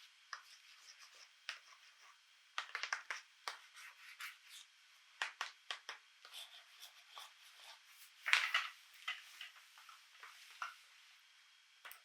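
Hands handling small plastic toy pieces: irregular light clicks, taps and scraping, with one louder rustle about eight seconds in.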